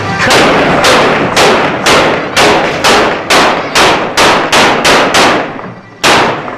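Gunshots fired one at a time in quick succession, about two a second, a dozen in a row, then a short pause and one more shot near the end; each crack is loud with a short echoing tail.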